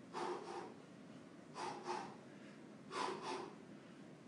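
A man's short, sharp breaths, forced out in quick pairs three times, in time with his punches while shadowboxing.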